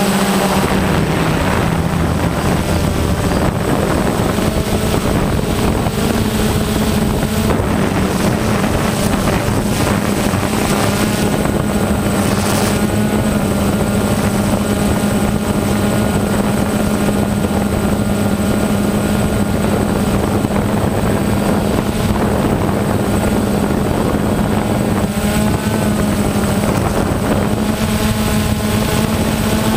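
A drone's electric motors and propellers running with a steady pitched hum, heard up close from its onboard camera; the pitch shifts a little now and then as it manoeuvres.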